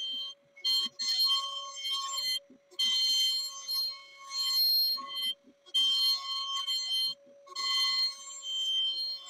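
PwnCNC spindle on a Onefinity Elite Foreman CNC router whining at a fixed high pitch as the bit cuts the oval outline out of the wooden sign. The whine comes in stretches of one to two seconds, broken by short, sudden gaps.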